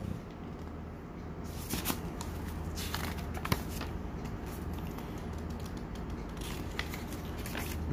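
Paper rustling and crackling as the pages of a printed instruction manual are handled and turned, starting about a second and a half in and going on in irregular crinkles and small taps.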